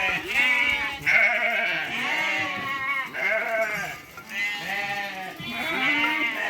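A flock of sheep bleating, many calls overlapping one after another with no gap, several of them wavering in pitch.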